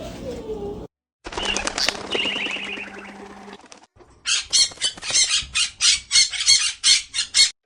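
Parrot sounds: first a falling whistle-like call, then from about halfway a loud, rapid run of harsh noisy bursts, about three or four a second.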